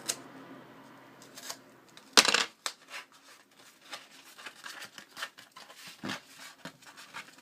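Packaging of a sheet of Jessup grip tape being handled and opened: one sharp knock about two seconds in, then scattered small clicks and rustles.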